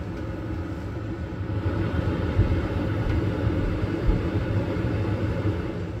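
Gas furnace running its startup sequence with the hot-surface igniter glowing: a steady low motor hum and rumble, most likely the draft inducer motor, growing a little louder about two seconds in.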